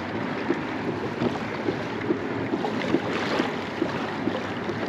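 Water lapping and splashing against a kayak, with wind buffeting the microphone.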